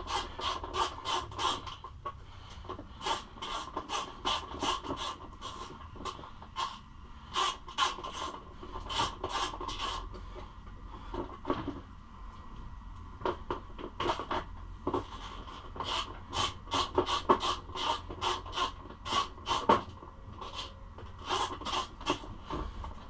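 Ratchet wrench with a socket clicking in quick runs of strokes, with short pauses between runs, as a bolt is snugged up.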